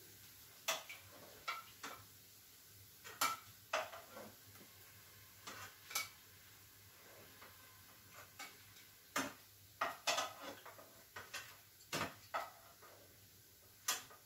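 A metal spoon clinking against a pan: a dozen or so sharp, irregularly spaced clinks as fried sweets are lifted out one at a time and dropped into sugar syrup.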